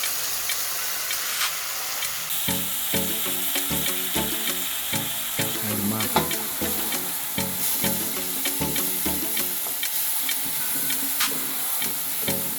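Food frying in hot oil in a pan, with a steady sizzle and frequent short clicks and scrapes of a utensil stirring it.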